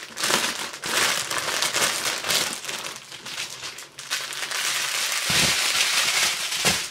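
Plastic packaging of a diamond-painting kit's drill bags crinkling and rustling as strips of small sealed bags are handled and dumped out, with two soft thuds near the end.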